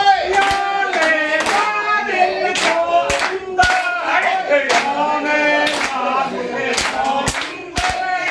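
Voices singing in long held notes, with hand claps keeping time about twice a second.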